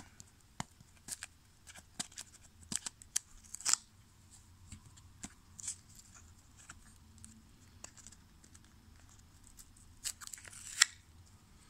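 Fingernails picking at and peeling tape off a clear plastic trading-card holder: scattered small clicks and scratches, with short bursts of tape tearing away, the loudest near the end.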